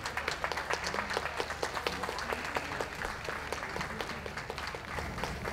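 An audience applauding: many hands clapping in a dense, steady patter.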